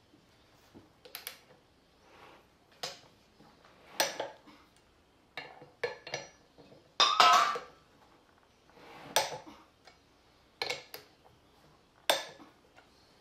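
A torque wrench and its socket clinking against steel sprocket nuts as the nuts are torqued down: about ten separate sharp metallic clicks and clinks at uneven intervals, the loudest a ringing clink about seven seconds in.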